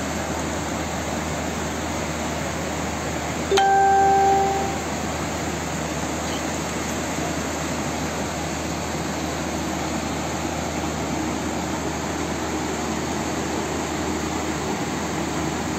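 Steady rushing noise of a muddy flash flood torrent pouring down a street. About four seconds in, a single loud steady tone sounds for about a second, like a horn or beep.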